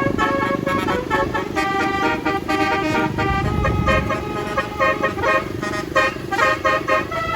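Basuri multi-tone 'telolet' bus horn playing a fast melody of short notes, over the low rumble of the bus's engine.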